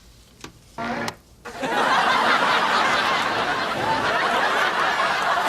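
Sitcom studio audience laughing, breaking out about a second and a half in and carrying on loudly, after a faint click.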